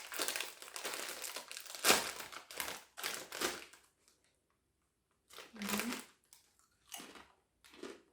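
A small snack bag of potato chips crinkling as it is torn open, with one sharp rip about two seconds in. After a short pause come several short crunches as the chips are bitten and chewed.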